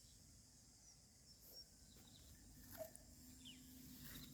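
Near silence: quiet outdoor ambience with a faint steady high hiss and a few faint, short, falling chirps.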